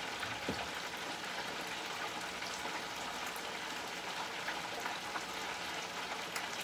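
Chicken wings frying in hot oil: a steady crackling sizzle of many small pops.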